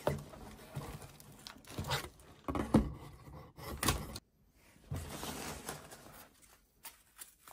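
A dull knife scraping and sawing through packing tape on a cardboard box, in a string of irregular rasps, taps and tearing sounds, then the cardboard flaps being pulled open.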